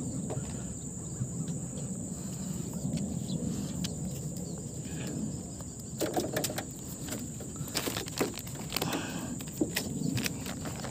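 Steady high-pitched insect drone over outdoor background noise, with a few short clicks and rustles about halfway through and again a couple of seconds later.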